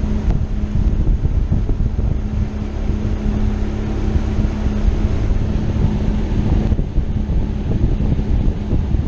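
Mercury two-stroke outboard motor running at a steady pitch as the boat cruises, with wind buffeting the microphone.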